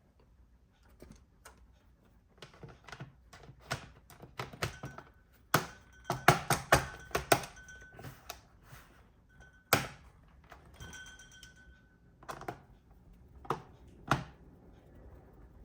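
Irregular plastic clicks and taps from hands working on a laptop, with a quick run of clicks around the middle and a few louder knocks later.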